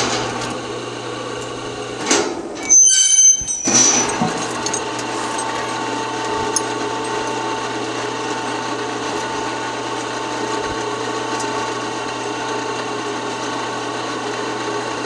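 Electric hoist motor running steadily as it lifts an I-beam by a pair of end beam clamps. It stops briefly about three seconds in, with a few high squeaks, then runs on.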